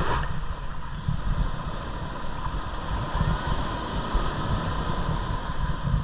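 Wind buffeting the microphone over the wash of surf on a sandy beach, with a faint steady hum throughout.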